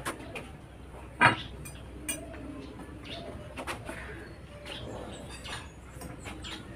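Scattered knocks and clinks of homemade concrete weight plates being picked up and handled, the sharpest knock about a second in. A bird calls faintly in the background.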